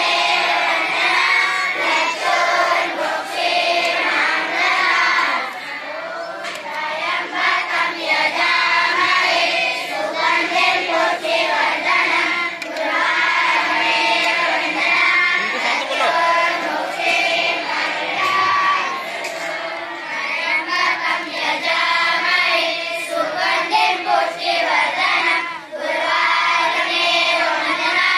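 A large group of boys chanting a prayer together in unison, in a sing-song melody, with short breaks between phrases.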